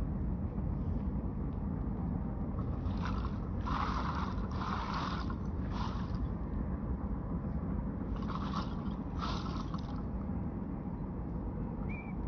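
Repeated short scraping strokes of a hand tool working over debris on the ground, each about half a second long, coming in uneven groups of two or three over a steady low rumble.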